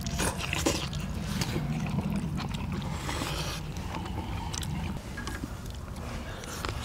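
Several people eating braised monkfish with bean sprouts: chewing, with chopsticks clicking and scraping on plates and bowls. A low steady rumble runs underneath and drops off about five seconds in.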